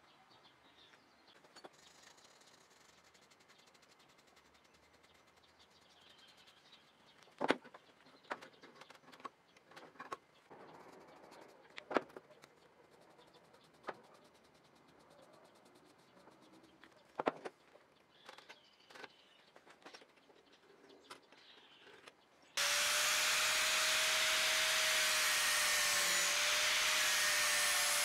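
A few scattered knocks and clicks of a steel blade being handled and clamped in a bench vise. Near the end an angle grinder starts suddenly and grinds the edge bevel of a knife blade made from car leaf-spring steel, a loud, steady grinding noise with a constant whine.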